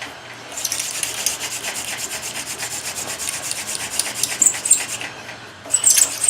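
Poison hemlock hand-drill spindle spun between the palms in the notch of a western red cedar hearth board: fast, rhythmic wood-on-wood rubbing, broken by two short pauses, near the start and about five seconds in. The friction is grinding out hot dust that forms a coal.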